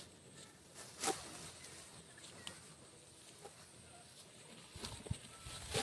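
Faint rustling and occasional crackles of dry rice stalks being handled during hand harvesting, with a sharp click about a second in and the rustling growing louder near the end.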